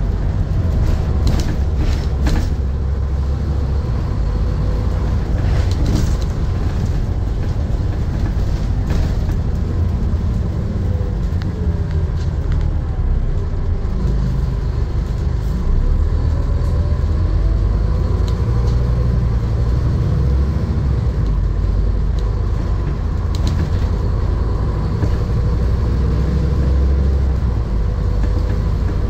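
Scania N230UD double-decker bus under way, heard from inside on the upper deck: a steady low diesel engine rumble with road noise, the engine pitch rising and falling a little as it pulls away and changes speed, and a few short rattles from the bodywork.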